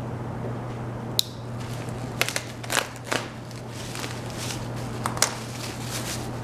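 A knife cutting into a cardboard parcel: a sharp click about a second in, then several short slicing and scraping strokes through packing tape and cardboard, over a steady low hum.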